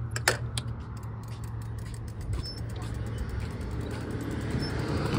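Road vehicle engine running steadily in street traffic, growing louder toward the end, with a couple of sharp clicks near the start.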